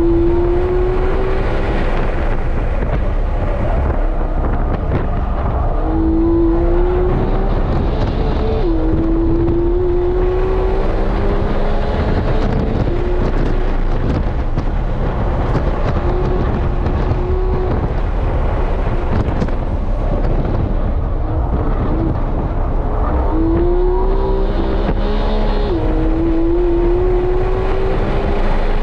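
Porsche 911 GT3 (991.2) 4.0-litre flat-six heard from inside the cabin at full pace on track, its pitch climbing under acceleration, easing off between pulls, and dropping sharply on two quick upshifts, about a third of the way in and near the end. Steady tyre and wind noise runs underneath.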